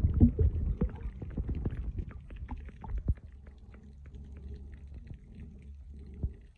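Underwater sound picked up by an iPhone XS Max's microphone while the phone is submerged in seawater: a muffled low rumble with scattered small clicks and crackles. It is louder in the first second or two and then fades to a faint rumble.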